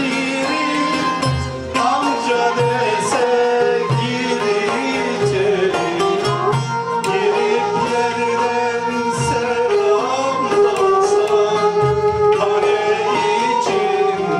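Turkish folk song (türkü) performed live by a folk music ensemble: singing over melodic instruments, with low drum beats recurring about every second.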